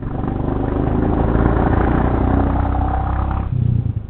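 Motorcycle engine pulling uphill under throttle, its exhaust beat growing louder over the first second, then easing off about three and a half seconds in. It is a loud exhaust note that makes people turn to look.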